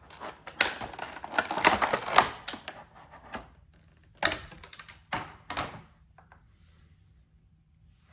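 Cardboard collection-box packaging and cards being handled: a quick run of clicks, taps and rustles for about three and a half seconds, a few more about four to six seconds in, then it goes quiet.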